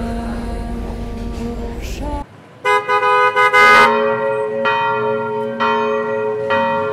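Steady background music with a low rumble cuts off about two seconds in; then church bells ring in a peal, about two strikes a second, each strike ringing on.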